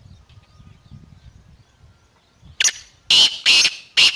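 Black francolin (kala teetar) giving its loud, harsh call. It starts about two and a half seconds in as a quick run of about five grating notes.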